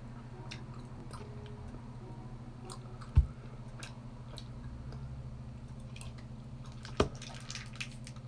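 A person chewing a wine gum, with scattered faint clicks. Two short sharp knocks, the loudest sounds, come about three and seven seconds in.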